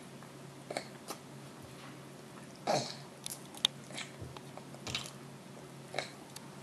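A baby chewing and smacking his lips as he eats rice, tofu and peas from his fingers, with short wet mouth clicks scattered through. The loudest sound, a little before the middle, is a brief one that drops in pitch.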